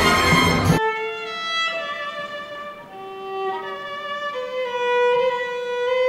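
Loud, dense music cuts off abruptly just under a second in. A solo violin then plays a slow melody of long bowed single notes.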